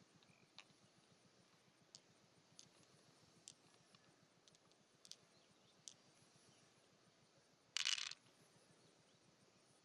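Faint scattered clicks and taps of small hard objects, with one louder short scrape about eight seconds in.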